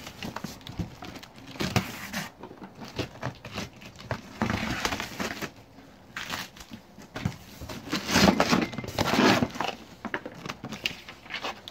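Cardboard shipping box being opened by hand: irregular rustling, scraping and crinkling of the cardboard flaps and packing tape, with short knocks as the flaps and the packed boxes inside are handled, loudest in two stretches in the middle and later on.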